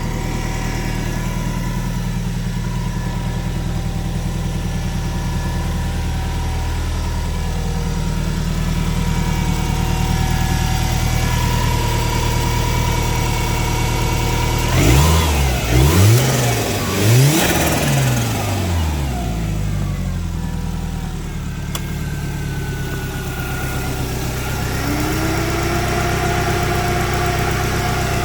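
Subaru STI's 2.5-litre turbocharged flat-four idling steadily while warming up. About halfway through it is blipped three times, with turbo flutter as the throttle snaps shut. Near the end a new whine rises and then holds steady as the secondary radiator fan switches on.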